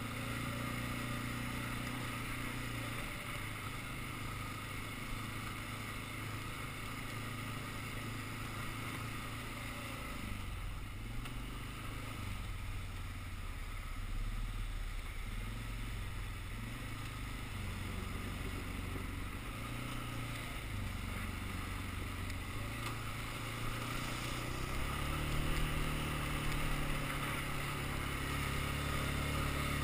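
Quad (ATV) engine running while it drives over a dirt track. The engine note steps up and down with the throttle and rises about three-quarters of the way through.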